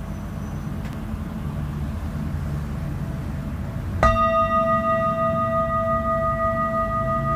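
Metal singing bowl struck once about four seconds in, then ringing on steadily with several clear overtones. Before the strike a faint ring lingers over a low rumbling background.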